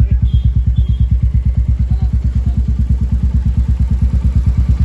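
Royal Enfield Meteor 350's single-cylinder engine idling through a Red Rooster aftermarket silencer, giving a steady, even, deep exhaust thump.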